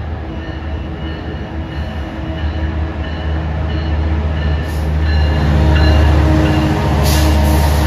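Metrolink Siemens Charger SC-44 diesel locomotive pulling a train of bilevel coaches into a station. A deep engine rumble with steady hum tones and wheel-on-rail noise grows louder as it draws alongside and is loudest about six seconds in.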